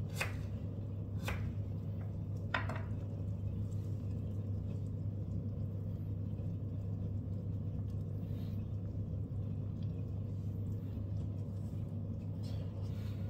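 A knife chops on a wooden cutting board, three sharp strikes about a second apart in the first few seconds, over a steady low hum.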